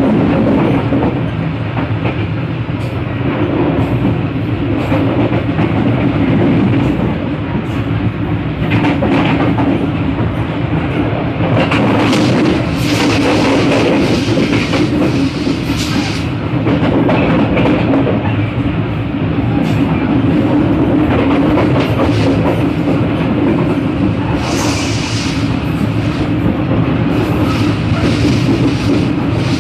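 Passenger train running along the track, heard from the vestibule between coaches: a steady loud rumble of wheels on rails with irregular clicks and rattles, busier and louder stretches about twelve seconds in and again near twenty-five seconds.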